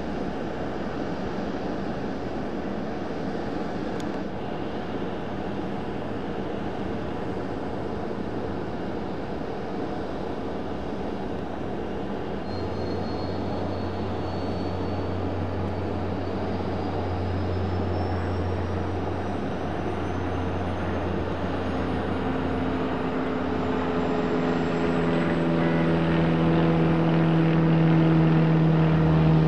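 Turboprop engines of a Beech MC-12S Huron, Pratt & Whitney Canada PT6As, running on the ramp. About halfway through, a low hum sets in and a thin turbine whine begins rising steadily in pitch. Near the end, the propeller tones climb too and the sound grows louder as an engine spools up.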